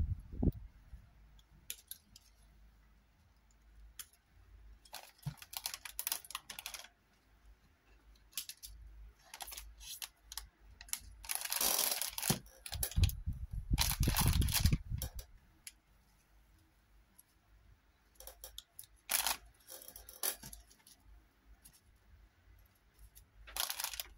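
Hand crafting noises: sharp clicks from wire cutters snipping the thin wire stems of paper roses, and several stretches of rustling and crinkling from handling a plastic packet, the longest and loudest about halfway through.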